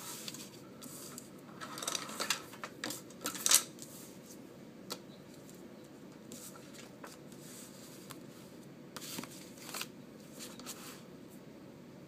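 Stack of index cards on a binder ring being flipped and handled: papery rustles and clicks, a busy run over the first few seconds with the loudest snap about three and a half seconds in, and a shorter run near the end.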